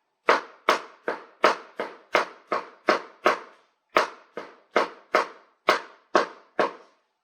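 Kitchen knife chopping a fresh tomato: about seventeen even strokes, a bit over two a second, with a brief pause about halfway.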